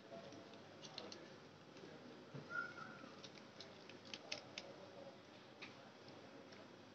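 Faint crackling and scattered ticks of a thin plastic candy wrapper being pulled off a marshmallow by hand, with one short high squeak about two and a half seconds in.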